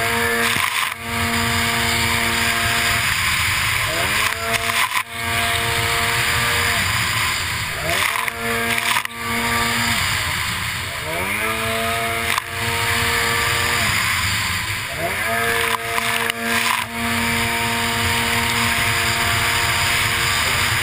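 Racing runabout jet ski engine heard onboard, revving up and holding high about five times, roughly every four seconds, with brief easings of throttle between, over steady wind buffeting and rushing water spray.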